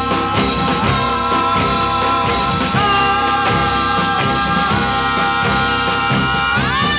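Music: an instrumental passage of an oldies pop record, with held chords that change a few times and slide upward near the end, over drums and steady percussion.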